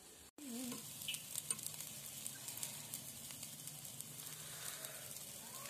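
Whole pomfret sizzling on a grill grate over a fire: a steady hiss with many small crackles. The sound drops out for a moment just after the start.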